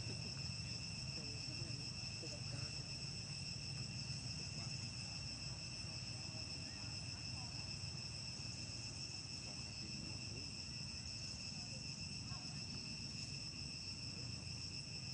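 Steady insect chorus, a continuous high-pitched trilling at several pitches at once, with a low background rumble.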